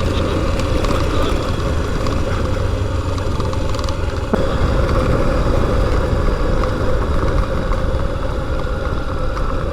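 Motorcycle engine running steadily while riding, with a constant low rumble. A single brief click about four seconds in.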